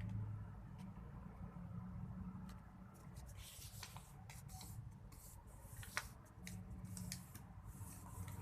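A sheet of paper being folded and creased by hand: scattered crinkles, taps and rustles, busiest in the middle of the stretch, over a steady low hum.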